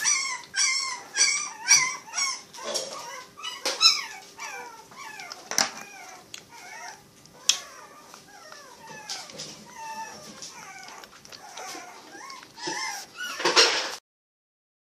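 Very young puppies whimpering and crying in short, high, wavering cries, loud and quick for the first few seconds, then softer, with a louder cry near the end before it cuts off suddenly.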